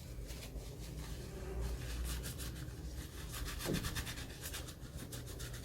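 Fingers rubbing and scratching over the iPod's plastic and metal parts while the device is handled, a run of short scratchy strokes with small ticks.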